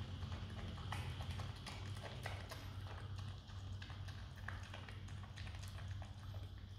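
Himalayan marmot chewing a piece of jackfruit: quick, irregular clicks and smacks of its teeth and mouth, over a low steady hum.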